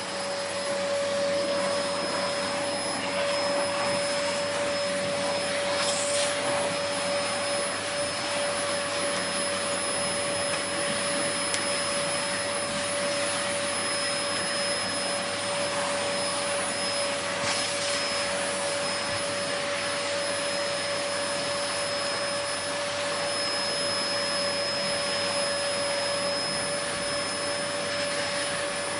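Vacuum cleaner running steadily: a constant rush of air under a steady motor whine. It has two brief higher hisses, about six and eighteen seconds in.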